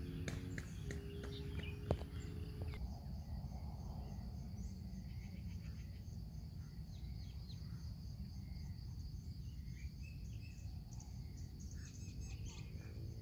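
Outdoor ambience: a steady high insect drone with scattered bird chirps over a low rumble. A faint steady hum runs through the first few seconds, with a single click about two seconds in.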